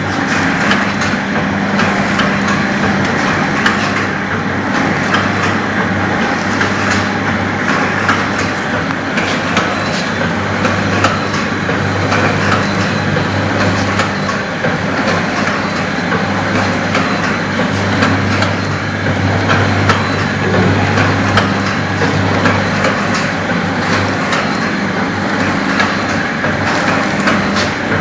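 Model 505 perfume-filling and four-side sachet sealing machine running steadily. It makes a continuous mechanical clatter with many small clicks over a low, steady hum.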